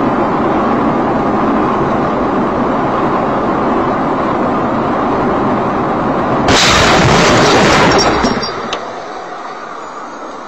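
Vehicle crash heard from the dashcam: steady road and engine noise, then about six and a half seconds in a sudden loud impact and crunch lasting about a second and a half. After it comes a fading rumble with a few sharp clicks and rattles, then the recording cuts off.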